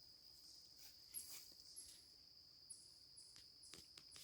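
Faint insect sound at near-silence level: a steady high-pitched cricket trill, joined about a second in by short, even higher chirps repeating roughly every half second, with a few faint ticks.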